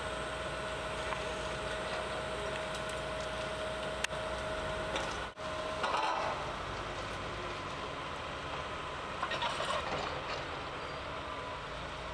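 Rail-mounted excavator running steadily, its engine and hydraulics working as the long chain-bar arm is raised, with a steady whine in the first half. The sound breaks off for an instant about five seconds in, and there is louder clattering just after and again near ten seconds.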